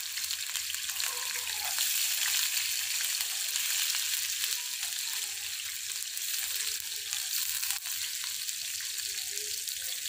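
Chopped garlic and cumin seeds frying in hot oil in a steel wok, a steady crackling sizzle: the tempering for kadhi.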